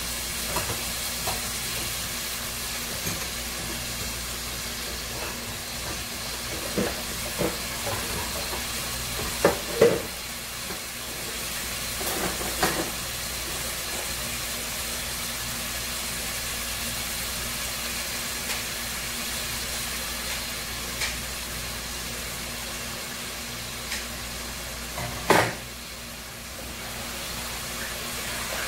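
Shrimp and onions sizzling in oil in a pot, a steady hiss broken by a few sharp pops and clicks.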